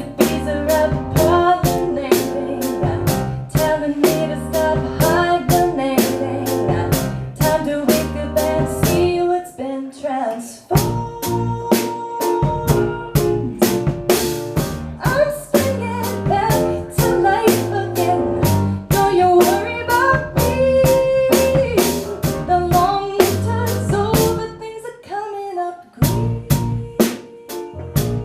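Live song with a steady, evenly spaced beat under pitched melody notes; the music thins out briefly about ten seconds in and again near the end.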